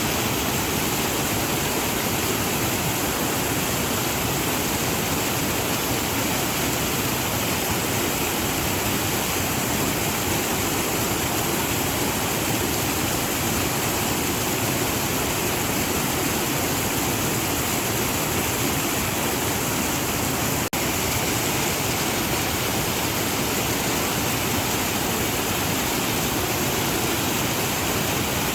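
Waterfall: a steady, unbroken rush of falling water, with one split-second dip in level about twenty seconds in.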